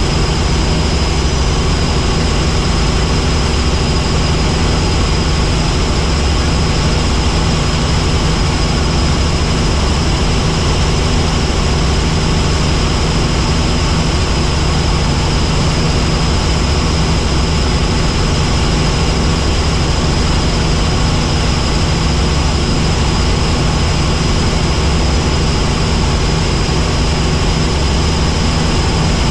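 Helicopter in flight: the steady, loud drone of the rotor and engine, with a thin high whine held over it.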